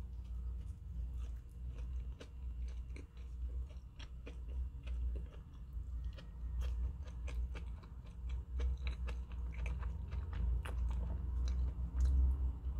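A person biting into and chewing a chicken burger in a black bun, close to the microphone: many short irregular clicks and crunches of the mouth over a low steady hum.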